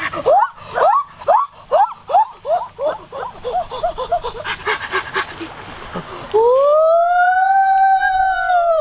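A boy's voice making a quick run of short hooting calls that sink in pitch, then, about six seconds in, one long drawn-out 'oooh' that rises and falls. Faint knocks of a wooden pestle in a clay mortar sit underneath.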